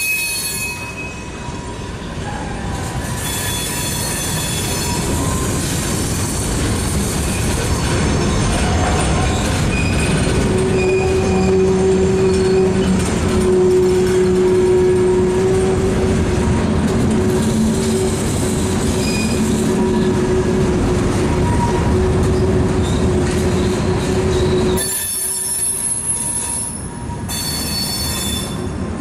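Freight train of covered hopper cars rolling slowly through a curve, steel wheels rumbling on the rails and squealing in steady high-pitched whines against the rail. About 25 seconds in the rumble drops off as the last car passes, leaving a fainter squeal that trails away.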